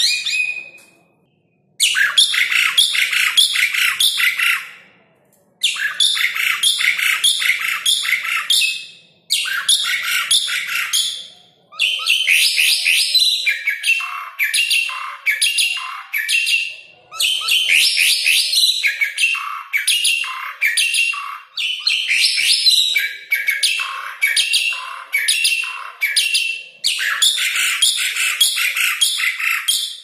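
Asian pied starling singing vigorously: phrases of a few seconds each made of rapid repeated loud notes, about four a second, separated by short breaks.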